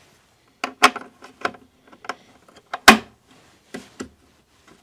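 Sharp metallic clicks and knocks as a Blum 110-degree straight-arm clip-top hinge is handled and clipped onto its mounting plate on the cabinet side, with the loudest snap a little under three seconds in.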